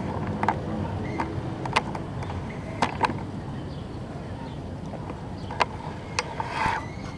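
Pedal car rolling over asphalt: a steady low rumble from the wheels, broken by sharp clicks and knocks from the car's frame and drive every second or so.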